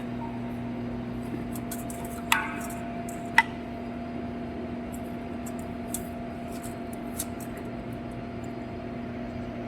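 Two sharp metallic clinks, about a second apart, over a steady electrical hum.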